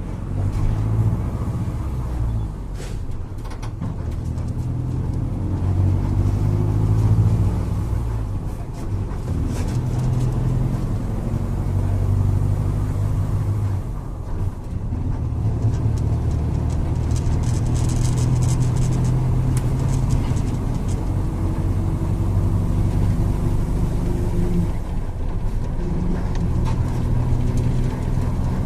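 Diesel engine of a VW 17.230 OD Euro V bus running under way, its low note rising and then dropping back several times.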